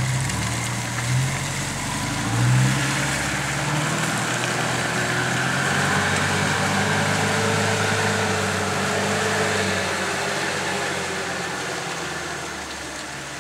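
Engine of a Mitsubishi Pajero 4x4 revving in two short surges, then pulling steadily under load as it climbs a muddy slope. It fades near the end as the vehicle moves away.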